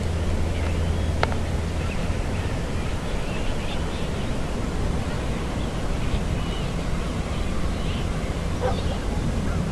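Steady wind noise on the microphone, with faint, short bird calls scattered through and a single click about a second in.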